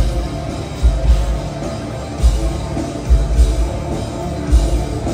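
Live heavy metal band playing loud: distorted electric guitars over drums, with heavy low-end hits about once a second.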